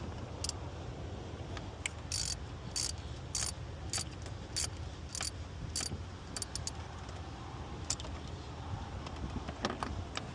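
A metal hand tool working on a car's bolt: short sharp metallic rasps, about one every 0.6 s for a few seconds, then a few scattered ones. Under them is a steady low rumble of a car.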